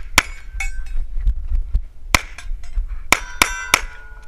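Pistol shots in an action pistol stage with steel targets clanging: about five sharp reports, the last three in quick succession, leaving a steel plate ringing with a steady tone near the end.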